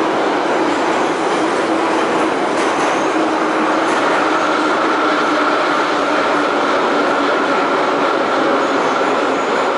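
Moscow metro 81-717/714 'Nomernoy' train running through a tunnel, heard inside the car: a loud, steady rush and rumble of wheels on rail and tunnel air, with a higher steady whine coming in about four seconds in.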